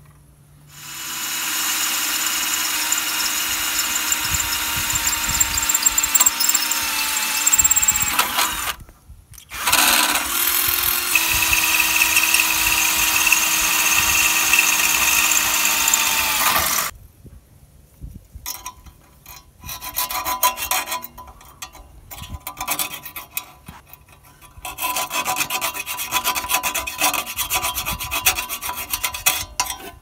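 Cordless drill boring a hole at a sheet-metal bracket under a car, in two runs of about eight and seven seconds with a short break between, the motor at a steady pitch. After that come irregular clicks and scrapes of metal parts being handled.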